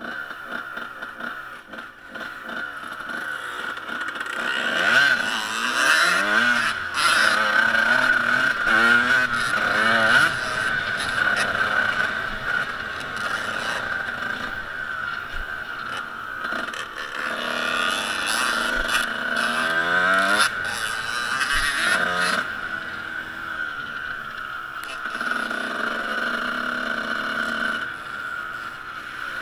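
Pit bike engine ridden hard on a dirt track, its note rising and falling again and again as the throttle is opened and shut.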